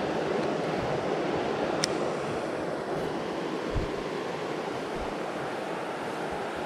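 Steady rush of flowing creek water. A couple of brief low thumps come a little past halfway.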